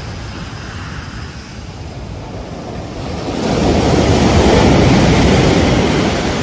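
Ocean surf on a beach: a lull of low wash, then a wave breaks about three seconds in and its rush of foam swells and slowly fades.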